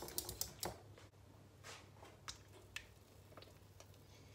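A few light clicks and taps from kitchen utensils and a bowl being handled, a quick cluster at the start and then single ones every half second or so, over a faint steady low hum.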